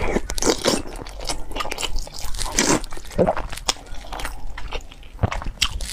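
Close-miked slurping of glass noodles, hot-and-sour sweet-potato vermicelli, followed by chewing with many small wet mouth clicks. Longer slurps come at the start and again about two and a half seconds in.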